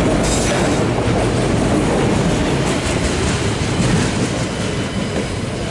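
Empty autorack freight cars rolling past on steel wheels, a steady rumble along the rails that eases off slightly as the last car goes by near the end.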